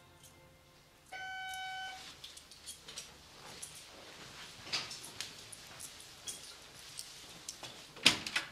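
A doorbell rings once, a single steady tone lasting about a second. Footsteps follow across the floor, and near the end comes a loud click and clatter of a door latch as the front door is opened.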